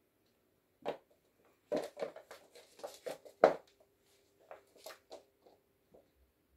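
A kitten's paws and claws tapping and scraping against a glass patio door and its plastic frame, in a run of short irregular taps and scratches, the loudest about three and a half seconds in.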